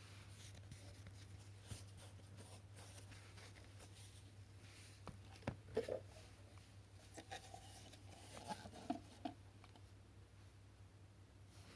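Quiet handling of the plastic dust box and head parts of a cordless stick vacuum: light clicks, taps and rubbing, a few louder knocks about halfway through and again near the end, over a faint low hum.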